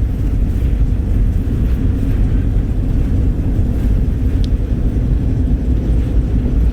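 Steady low rumble of a road vehicle on the move: engine and tyre noise.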